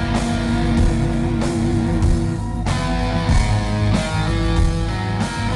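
Hard rock band playing loud and live: electric guitar lines over drums and bass in an instrumental stretch without vocals, picked up from in front of the stage.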